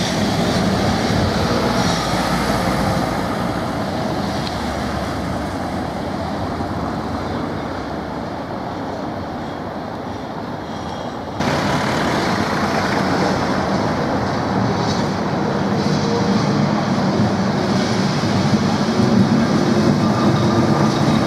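Heritage trams running on street rails: a steady rumble of wheels and running gear mixed with street traffic, jumping suddenly louder about halfway through.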